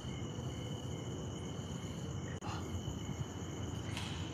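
A night insect chorus trilling steadily, with a fainter call pulsing about twice a second beneath it. Under that runs a low rumble of wind on the microphone.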